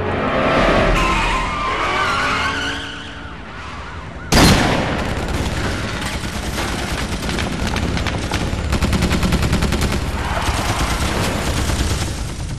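Action-film sound effects: a bending, screeching sound in the first few seconds, then a sudden loud blast about four seconds in. Rapid machine-gun fire follows, densest in the middle of the stretch.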